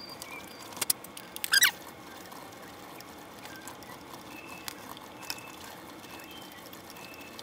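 Mini-lathe running while a drill bit is hand-fed into a spinning steel bolt to drill a center hole. The cutting makes a steady, low-level noise. Two sharp clicks come just under a second in, and a brief loud squeal about a second and a half in.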